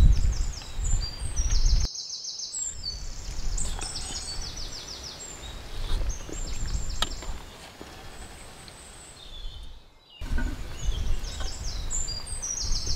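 Small birds chirping and singing rapid trills of quickly repeated notes, over a steady outdoor background noise. A low rumble is heard for about the first two seconds, and the sound drops out abruptly twice, about two and ten seconds in.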